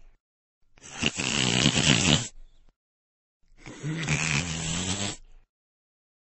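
A cartoon character snoring: two snores of about two seconds each, a second apart. The first is rough and rattling; the second holds a steady low pitch.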